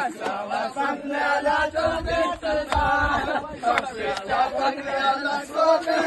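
A group of men chanting together in unison, with a few sharp hand claps among the voices.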